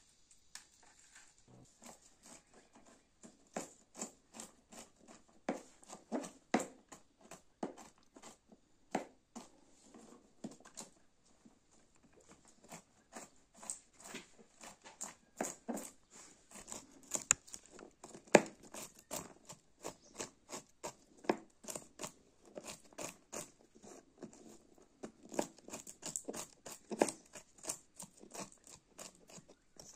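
A long series of irregular light taps and pats, a few a second, continuing without a break and growing somewhat louder and denser in the second half.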